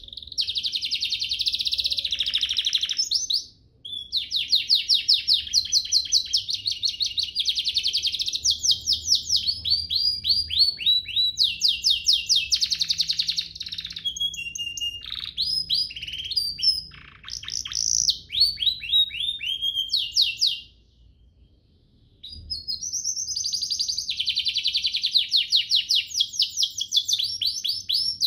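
Domestic canary singing a long, fast song of rapid trills and chattering phrases. It breaks off briefly a few seconds in and again for a second or so about three-quarters of the way through.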